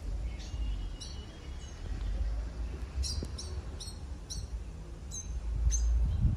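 A bird chirping over and over, short high notes about two a second from about halfway through, over a low rumble that swells louder near the end.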